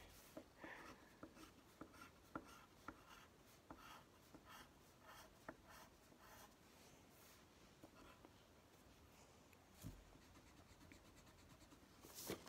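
Pencil scratching on paper in many short, faint strokes, some in quick runs. A soft thump about ten seconds in and a brief louder rustle near the end.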